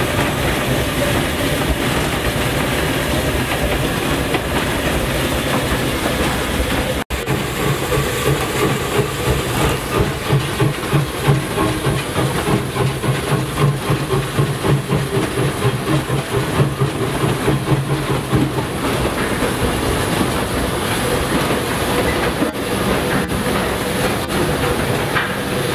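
A narrow-gauge steam locomotive running with its train, heard from on board, with a steady steam hiss. From about nine seconds in, a strong rhythmic beat of the running gear and wheels on the rails sets in. It eases off a few seconds before the end as the train slows.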